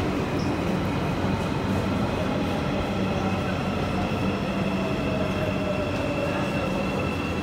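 Marmaray commuter train running into an underground station: a steady rumble and electric hum, with a motor whine that falls slowly in pitch over the second half as the train slows.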